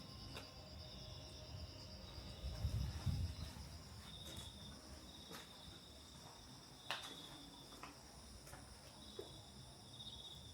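Insects chirring steadily: one continuous high pulsing trill, with a second insect joining in short repeated bursts a little lower in pitch. A few faint clicks sound, the clearest about seven seconds in, and there is a brief low rumble about three seconds in.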